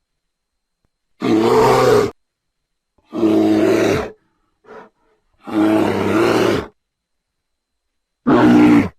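Pachyrhinosaurus creature sound effects: a series of separate dinosaur calls, each about a second long, with a short faint grunt between the second and third. The calls are divided by silences.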